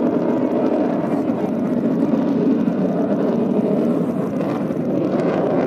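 Military jet aircraft flying overhead, their engines a steady, even noise that holds throughout.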